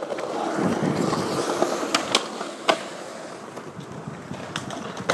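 Skateboard wheels rolling on smooth concrete, a steady rumble that eases off after about two seconds, with a few sharp clacks of a board.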